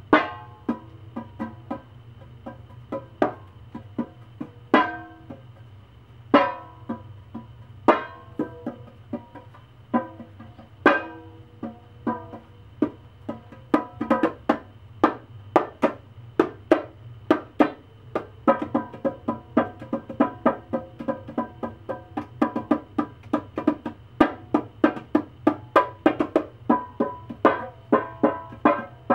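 Plucked-instrument music: single ringing notes a second or two apart, then from about halfway a fast, steady run of notes.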